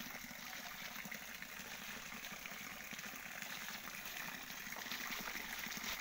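Water trickling and running in a small, shallow stream, growing slowly louder.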